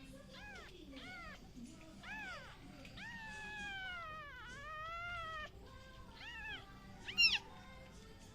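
Newborn kittens mewing: a run of short, high, arched mews, one long drawn-out mew in the middle that sinks in pitch and rises again, and a sharper, higher mew near the end that is the loudest.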